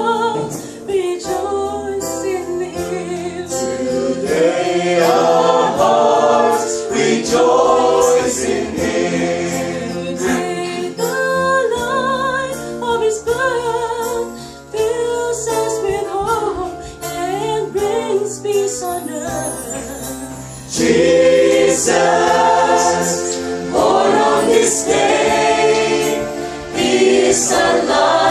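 A small mixed group of men and women singing a song together as a choir, swelling louder about four seconds in and again sharply about twenty-one seconds in.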